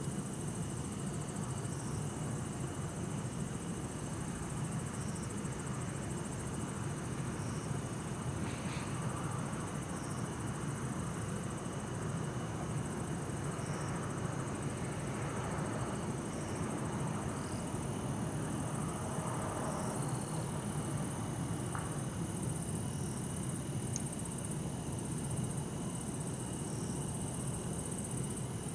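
Bell crickets (suzumushi) and other insects chirping steadily in several high-pitched trills, over a low, even rumble of distant city traffic.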